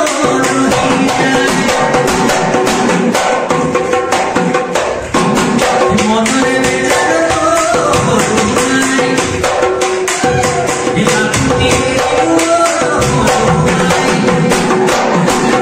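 Bihu folk music: fast, steady drumming with singing and a melody over it.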